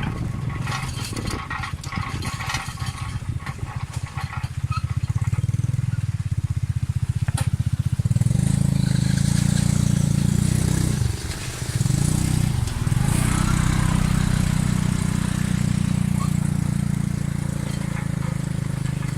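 Tuk-tuk's motorcycle engine running under load on a rough track, with the carriage rattling and clattering over bumps. About eight seconds in the engine gets louder, then it drops away twice in quick succession, as when the throttle is eased or a gear is changed.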